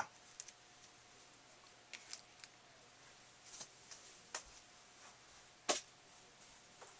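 Quiet room with a handful of faint, scattered clicks and ticks, the loudest one a little before the end.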